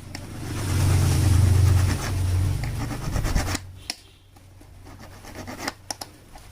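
Hand rubbing and scraping of a small metal motorcycle oil-pump part, smoothing it by sanding or filing so its pinion can turn freely. The rubbing is loudest in the first three seconds or so, then turns quieter with a few light clicks.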